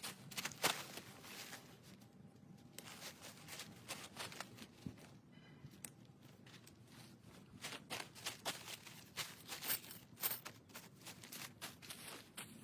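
Irregular rustling and light knocks, many in quick succession, with the busiest stretch in the second half.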